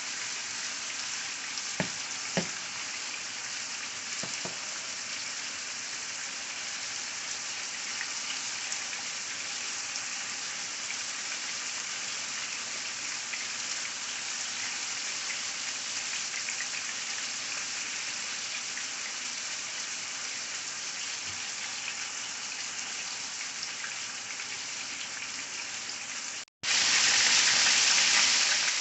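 Chicken pieces browning in hot oil in a skillet, sizzling steadily, with a few light knocks about two and four seconds in. After a brief break near the end the sizzling is louder.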